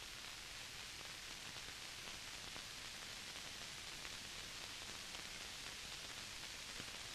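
Steady hiss of soundtrack background noise, with no other sound.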